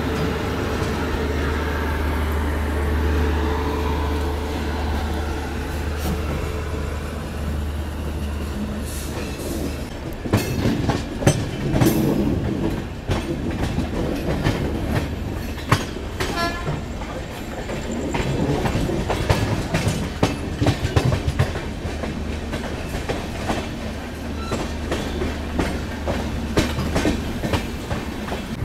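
Passenger train departing and picking up speed: a steady low rumble of the coach running, then from about ten seconds in the wheels clatter and knock over rail joints and points in the station yard.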